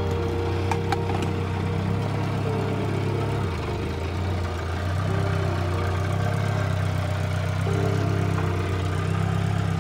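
Small skid-steer loader's engine running steadily, its note dipping for about a second near the middle and then coming back up.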